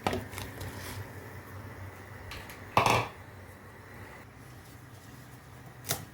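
Kitchen utensils and cookware being handled: a few light clicks and knocks at first, a louder, longer knock about three seconds in, and one sharp knock near the end.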